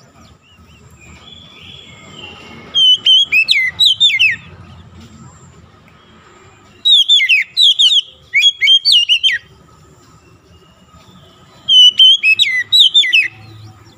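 Oriental magpie-robin (kacer) singing three loud bursts of whistled song, each a quick run of clear notes that slide up and down, a few seconds apart.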